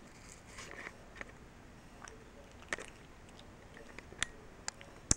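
Capuchin monkey handling and mouthing the camera up close: a few faint, sharp clicks and taps scattered over a quiet background.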